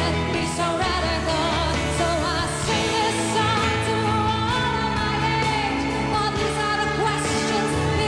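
A woman singing a pop song live with band accompaniment that includes electric guitar; her voice holds long notes with a wavering vibrato over a steady low backing.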